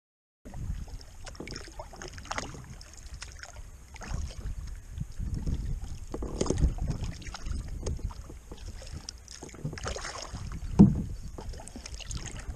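Kayak paddle strokes: the blades dip and splash in river water every couple of seconds, with wind rumbling on the microphone. There is one sharp knock near the end.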